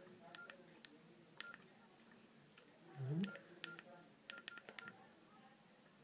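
Faint Nokia 6120 classic keypad tones: short, same-pitched beeps with key clicks as the keys are pressed to move through the phone's menus, with a quick run of presses about four seconds in. A brief low voice sound comes about three seconds in.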